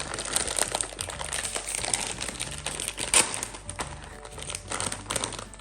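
Crinkling of a plastic snack bag of Piatos potato chips being handled.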